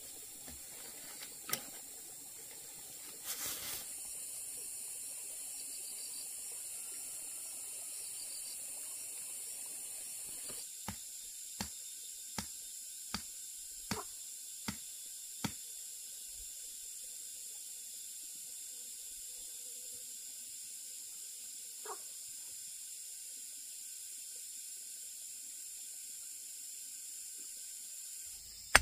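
A steady high hiss with a run of seven sharp knocks, evenly spaced about three-quarters of a second apart, from about eleven seconds in; a faint steady high tone joins the hiss partway through.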